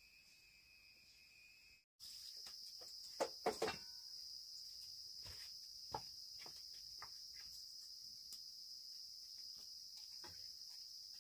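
Steady, high-pitched insect chirring, with scattered short knocks and clicks over it, a few louder ones a little after the gap. About two seconds in, the sound cuts out briefly and comes back with the chirring at a higher pitch.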